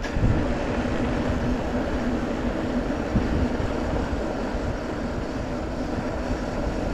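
Bicycle riding over rough, wet ground: a steady rumble of tyres and frame, with one small knock about three seconds in.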